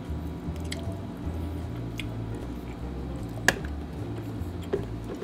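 Close-up eating sounds of grilled pink salmon head picked apart by hand and eaten: wet squishes and mouth smacks, with one sharper click about three and a half seconds in. Quiet background music with a walking bass runs underneath.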